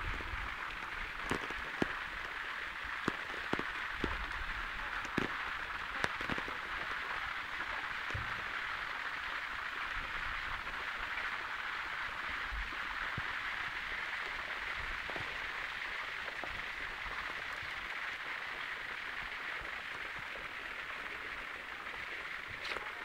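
A steady hiss, with scattered sharp clicks and knocks during the first several seconds.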